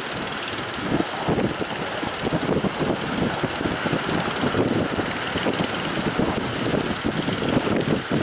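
Strong wind buffeting the microphone in irregular thumps, over a steady rushing noise.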